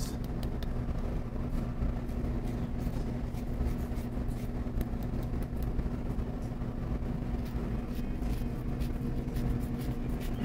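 Lemon peel rasped across a fine rasp grater, a run of faint, irregular scratchy strokes, over a steady low hum that is the loudest thing heard.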